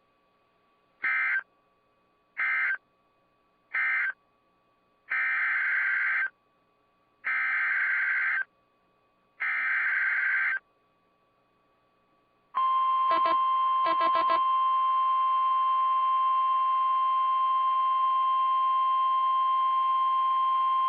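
NOAA Weather Radio EAS data bursts. First come three short SAME end-of-message bursts, then three longer SAME header bursts that announce the next alert, each a buzzy digital warble. About twelve seconds in, the steady single-pitch Weather Radio warning alarm tone starts and holds for about nine seconds.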